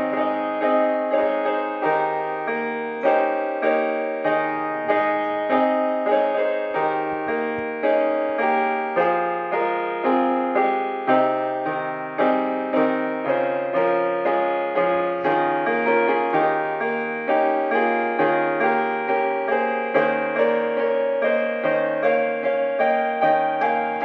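Solo piano music: a steady, flowing piece with struck notes that ring and fade, about two attacks a second.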